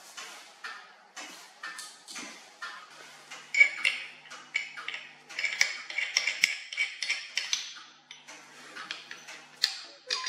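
Small metal watchmaking tools clicking lightly at about two to three a second. From about three and a half seconds in come louder, ringing metallic clinks as the steel and aluminium parts of a bench-top watch case press are handled.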